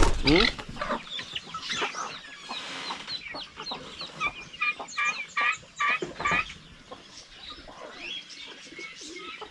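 Free-range poultry calling, noisy: a loud harsh call right at the start, then a run of short, repeated chattering calls, thickest between about four and six and a half seconds in.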